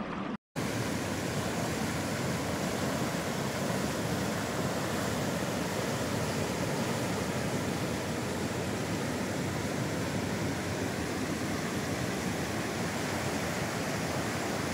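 A river in flood rushing steadily: a dense, even noise of fast, high water. It drops out for a moment about half a second in, then runs on unchanged.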